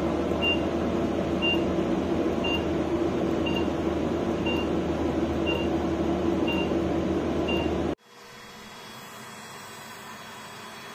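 Laser hair-reduction machine running with a steady fan noise, giving a short high beep about once a second, typical of the pulse signal as the handpiece fires. After about eight seconds it cuts off abruptly to a quieter steady hum with a faint high tone.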